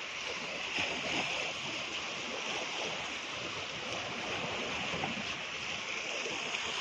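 Sea waves washing on the shore, a steady wash of noise with no distinct events.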